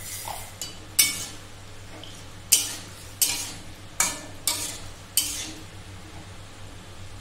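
A flat metal spatula stirring boiled kidney beans and potato pieces in a metal kadai, scraping and knocking against the pan about six times.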